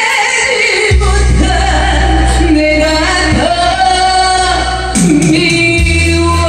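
A woman sings a Korean trot song into a handheld microphone over backing music, holding long notes. The bass comes in about a second in.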